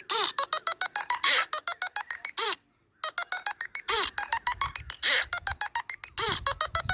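Nothing Phone (2) ringtone playing: a fast electronic pattern of staccato clicks and short bleeps with quick falling chirps. It breaks off for about half a second midway, resumes, and a low pulsing bass joins about four seconds in.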